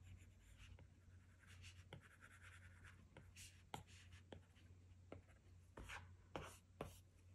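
Apple Pencil tip stroking and tapping on an iPad Pro's glass screen: faint short scratchy strokes with light ticks as the tip touches down, over a low steady hum.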